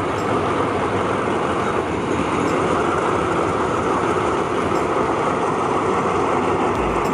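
Alsthom diesel-electric locomotive of the State Railway of Thailand, no. 4146, running steadily as it moves slowly past, with a dense engine rumble. The low rumble grows heavier near the end.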